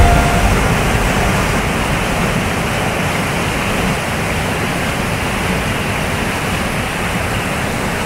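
Steady rushing of a waterfall in full flow and the rapids below it.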